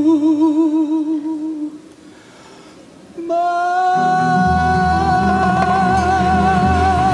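Male ballad singer's voice, live: a long vibrato note fades away in under two seconds, and after a short hush a higher note rings out and is held with a wide vibrato. The band comes in beneath it with sustained chords about four seconds in.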